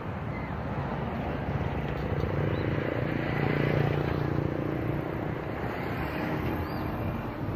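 A motor engine's low hum, growing louder toward the middle and easing off again, as of a vehicle passing by.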